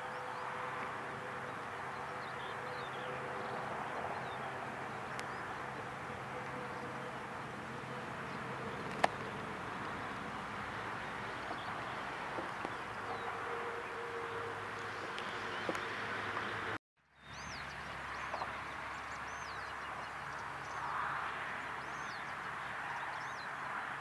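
Open-field ambience: a steady hum of buzzing insects with faint, high, distant bird chirps, mostly near the end. A single click sounds about nine seconds in, and the sound cuts out completely for a moment about seventeen seconds in.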